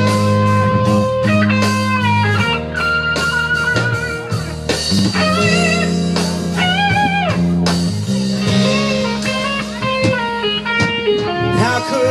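Blues-rock instrumental intro: electric guitar playing bending, vibrato-laden lead lines over a steady bass.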